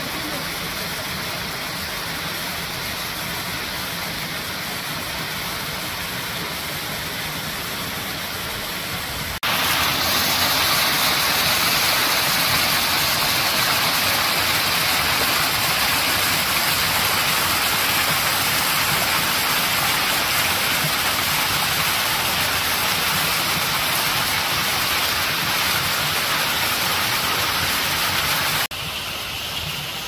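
Rushing water of a small mountain stream cascading over granite rocks, a steady splashing hiss. About nine seconds in it becomes suddenly louder and brighter as a closer stretch of rushing water takes over, then drops back shortly before the end.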